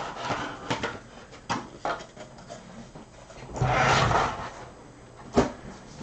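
Handling noise from a trading-card box being opened: several short clicks and taps, then a longer rustling, tearing noise about three and a half seconds in, and a sharp knock near the end.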